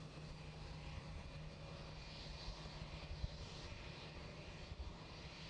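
Airbus A320-family airliner's jet engines at taxi power as it rolls past: a steady hiss and whine over a low rumble.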